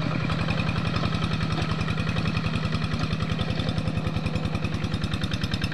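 Two-wheel hand tractor's single-cylinder diesel engine running steadily with a rapid, even chugging beat as the tractor works through deep paddy mud.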